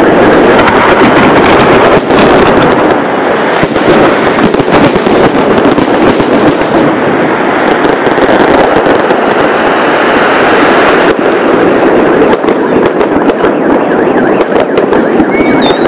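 New Year's fireworks barrage: a dense, continuous run of bursts and crackling, very loud, with no break.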